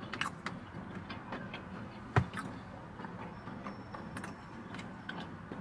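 A person chewing a bite of chicken bacon croissant sandwich: scattered small mouth clicks, with one sharper click about two seconds in.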